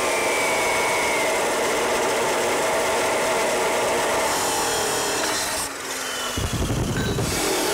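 Metal-cutting chop saw slicing through steel round stock, a steady grinding whine under load. For about a second near the end a low fluttering rumble joins it.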